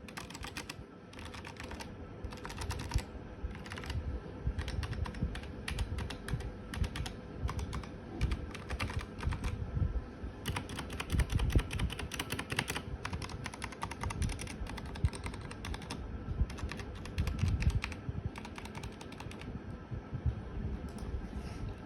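Typing on an Ajazz K685T mechanical keyboard: quick runs of keystroke clicks broken by short pauses, densest and fastest around the middle.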